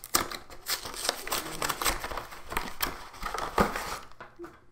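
Plastic shrink-wrap being torn and peeled off a Pokémon trading card collection box: a dense run of crinkling and crackling with sharp little snaps, thinning out near the end.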